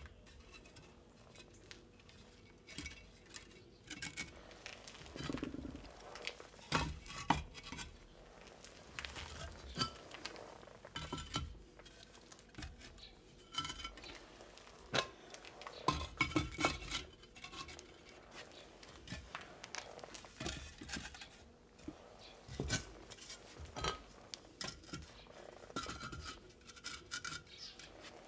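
Hard objects being handled: irregular clinks, knocks and scrapes that come and go throughout.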